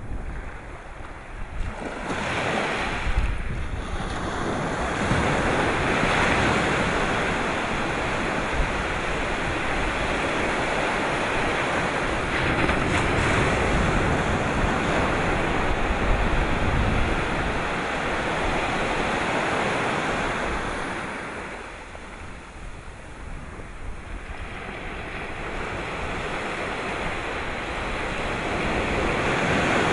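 Sea waves breaking and washing ashore as a continuous rush of surf. It builds over the first few seconds, stays loud, eases about two-thirds of the way through, then builds again.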